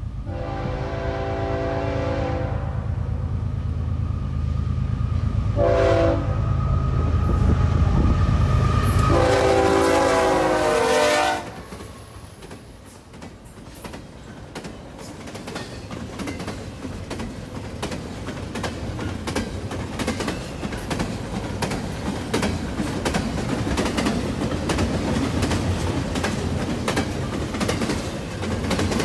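Train horn sounding three blasts, long, short, long, over the heavy low rumble of a passing locomotive's engine. About eleven seconds in the engine sound drops away and the cars roll by with steady clickety-clack from the rail joints.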